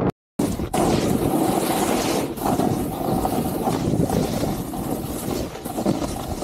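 Wind rushing over the camera microphone and snowboard edges scraping across snow during a fast downhill ride, a dense steady rush. It drops out to silence for a moment just after the start, then picks up again.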